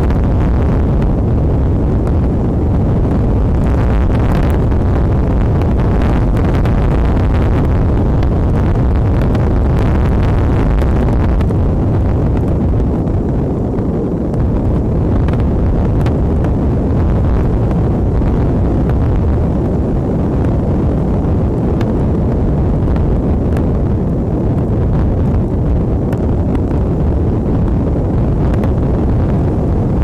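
Strong wind buffeting a nest camera's microphone: a loud, continuous low rumble, with a brief lull about fourteen seconds in.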